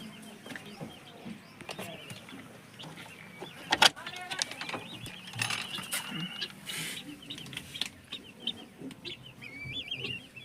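A flock of chickens calling and clucking, with many overlapping high wavering calls. A sharp knock about four seconds in.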